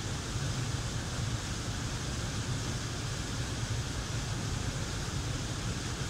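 Waterfall pouring into a river pool, a steady rush of falling and churning water with a deep rumble underneath.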